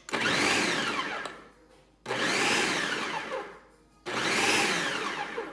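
Ninja food processor chopping whole mushrooms in three pulses of about two seconds each, the motor's whine rising as it spins up and falling as it slows between pulses.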